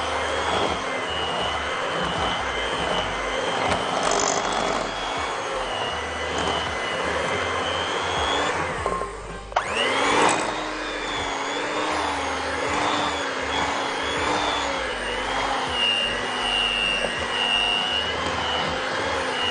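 Electric hand mixer running, its beaters working flour into a thick creamed butter-sugar batter, with the motor pitch wavering under the load. About nine seconds in it stops for a moment, then starts again and rises back up to speed.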